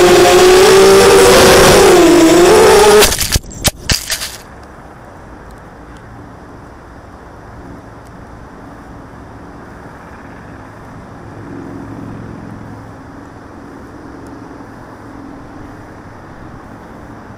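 Onboard recording of a ZMR250 racing quadcopter's four Cobra 2208 brushless motors and 5-inch props whining loudly, the pitch dipping briefly, then a crash about three seconds in: a few sharp knocks as it hits the ground and the motors cut out. After that only a faint steady wind hiss on the microphone remains.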